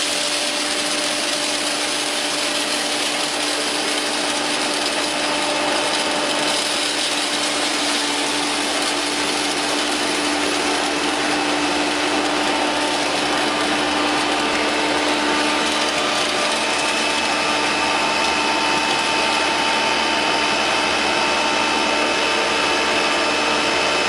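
Electric hammer mill grinding grain: a steady, loud rush of motor, rotor and airflow with several steady hums running through it.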